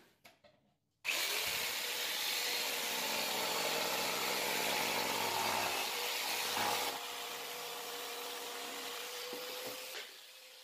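Electric saw cutting a laminate floorboard: a steady motor tone over loud cutting noise that starts abruptly about a second in, drops somewhat about seven seconds in, and stops near the end.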